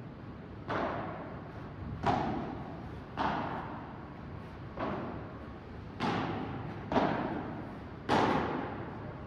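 Padel rally: seven sharp hits of the ball, roughly one every second or so, each ringing out in the echo of a large indoor hall.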